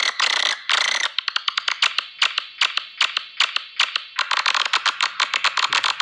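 Swiftlet call lure recording: a dense, fast twittering of high-pitched chirps and rapid clicks, many per second, of the kind played to draw swiftlets to a nesting house.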